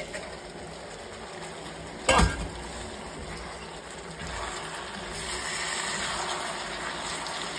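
Stir-fry sizzling in a covered frying pan on a gas-canister camp stove; about two seconds in the metal lid is lifted off with a sharp clank. The sizzling grows louder through the second half as the open pan steams.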